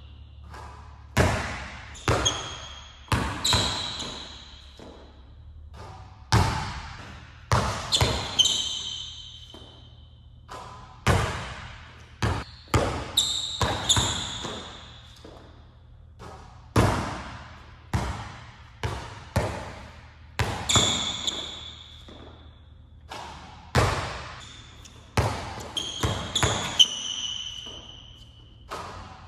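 A basketball bouncing and being dribbled on an indoor court, each bounce echoing in a large gym, with short high squeaks of sneakers on the floor between them.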